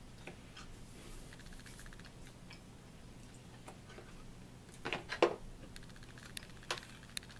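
Forks clicking and scraping against dinner plates as two people eat, faint small clicks with a sharper clink about five seconds in.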